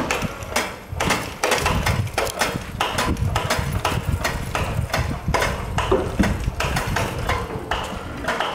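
Electric chain hoist running as it lowers a heavy tool into a pipe butt fusion welding machine: a low motor hum under a quick, irregular metallic clatter of chain and knocking steel parts, several clicks a second.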